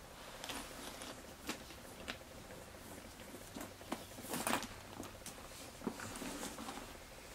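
Louis Vuitton Ponthieu PM Empreinte leather handbag being moved from the shoulder to crossbody: faint rustling of the strap and clothing with scattered small clicks, the loudest cluster a little past the middle.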